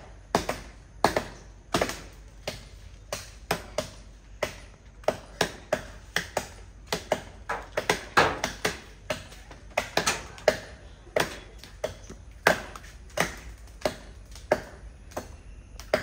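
Machete chopping into a jackfruit tree branch: a long series of sharp blows, about two a second at an uneven pace.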